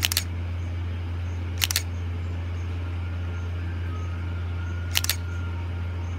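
Canon EOS 1300D DSLR shutter firing three times, near the start, about one and a half seconds in and about five seconds in. Each shot is a quick cluster of two or three sharp clicks as the mirror flips up, the shutter curtains run and the mirror drops back, over a steady low hum.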